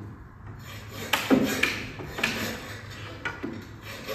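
Hand tools knocking and tapping against a wooden door frame and header: several irregular knocks, a few with a short ring.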